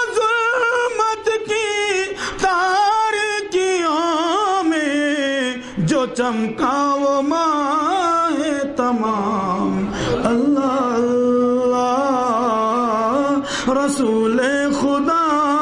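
A man singing an Urdu naat unaccompanied into a microphone: long, ornamented held notes with a wavering pitch, sliding lower around the middle and holding there.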